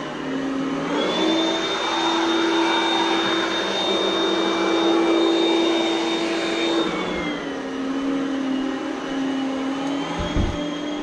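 Oreck Elevate Conquer upright vacuum cleaner running. Its motor whine rises in pitch about a second in, holds, then drops back about seven seconds in as the load on the motor changes. A brief low thump comes near the end.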